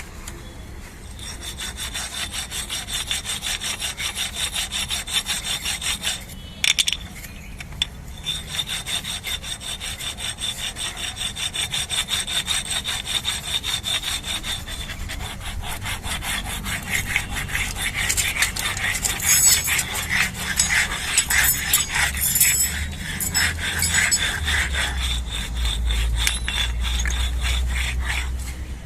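Rapid back-and-forth abrading strokes by hand, several a second, consistent with rubbing down a brake caliper pin. They stop briefly about seven seconds in and grow louder in the second half.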